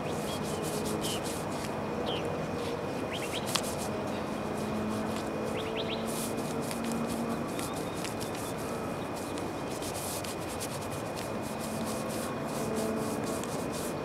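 Hand tool rubbing and scraping on the roof surface in many quick, scratchy strokes, over a steady hum with a thin steady high whine. A few short chirps from a bird about three and six seconds in.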